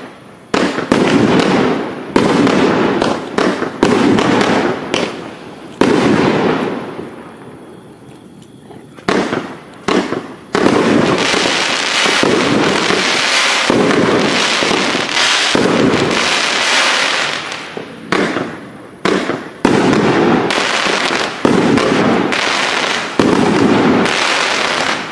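A 24-shot consumer fireworks cake firing in quick succession. Each shot launches and bursts into a trail of glittering crackle. There is a lull of a couple of seconds about a third of the way in, then a denser barrage.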